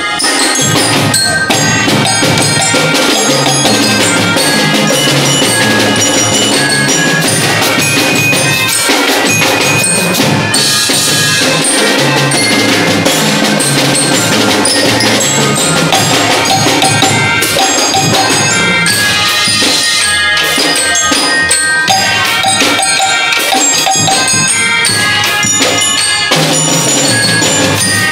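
Marching drum band playing: snare, tenor and bass drums with cymbals under a tune carried by pianikas and mallet bells. The music starts abruptly right at the beginning and keeps going at full volume.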